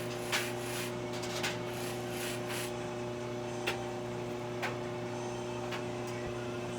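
Electric buffing motor running with a steady hum while a briar pipe is held against the spinning carnauba-wax wheel, making several brief scuffing contacts.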